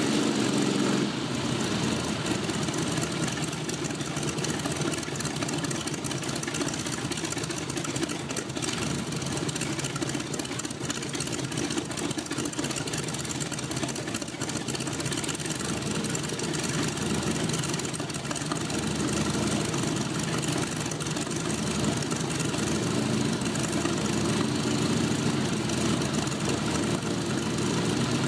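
Propeller aircraft engine mounted on the back of a VW Beetle, running steadily with its propeller turning. It eases back slightly about a second in and grows a little louder over the last several seconds.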